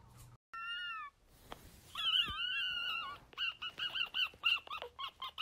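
Siberian husky puppy howling: a short wavering howl, then a longer one about two seconds in, then a run of short up-and-down howls, about three a second.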